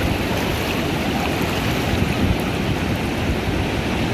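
Ocean surf washing onto a beach: a steady, unbroken rush of water, heaviest in the low rumble, with wind on the microphone.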